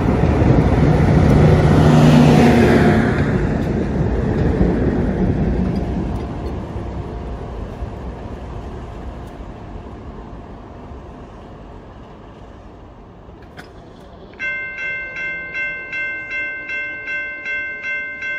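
Rear of a passenger train rolling past, with the MLW FPA-4 diesel locomotive on the rear going by about two seconds in with its engine hum over the wheel rumble. The noise then fades steadily as the train pulls away. Near the end a bell starts ringing steadily, about two strikes a second.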